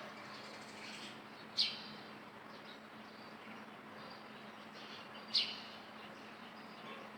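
Baby monkey giving two short, high-pitched chirping squeaks about four seconds apart, over a faint steady hum.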